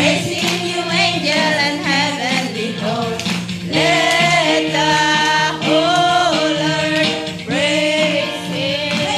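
Upbeat Christian worship song: several voices sing long held notes over sustained chords and a steady beat.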